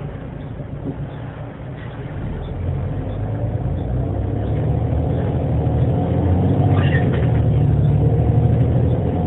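A bus's engine and drivetrain running with a low rumble that grows steadily louder from about two seconds in as the bus gathers speed. The bus has a faulty differential.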